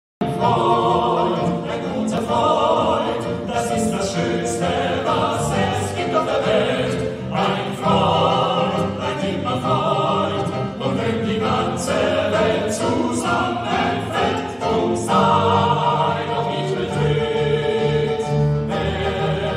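Four male tenors singing in operatic style in harmony, with piano accompaniment, cutting in suddenly right at the start.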